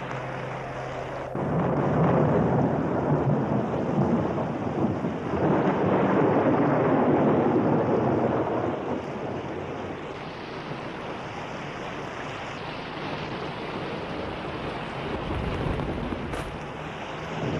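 Thunderstorm: two long rolls of thunder over heavy rain, starting suddenly about a second in and easing after about eight seconds to steady rain. Before the thunder starts, a held music chord is cut off.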